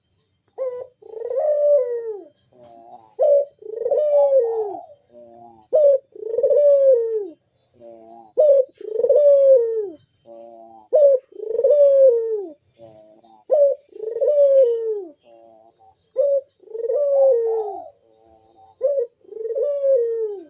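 A puter dove (ringneck dove) cooing its 'bekur' call over and over: each phrase is a short note and then a long, arching coo that rises and falls, repeating about every two and a half seconds.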